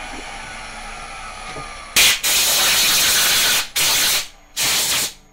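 Milling machine spindle winding down with a faint falling whine, then a compressed-air blow gun blasting three times, the first blast about a second and a half long and the other two short, blowing aluminium chips off a freshly milled cast aluminium cylinder block.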